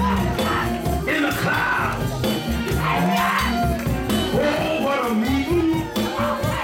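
Lively church band music with a steady beat and strong bass, with a voice calling out over it.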